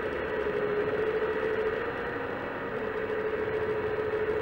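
Wedico 1:14.5 CAT 345D RC hydraulic excavator running, its hydraulic pump giving a steady whine over a motor hum, dipping slightly about halfway through as the boom works.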